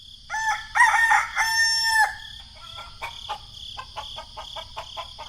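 Rooster crowing: a few short notes and then one long held note, followed by a run of short quick clucks. A steady high-pitched drone runs underneath.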